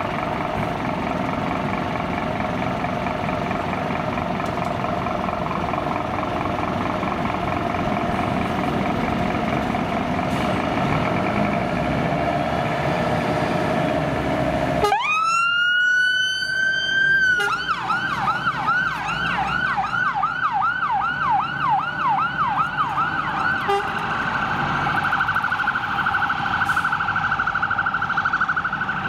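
Fire engine's electronic siren sounding as the appliance turns out: about halfway through it winds up to a held wail, switches after a couple of seconds to a fast yelp, and changes to a rapid phaser warble near the end. Before the siren starts, the truck's engine runs with a steady tone.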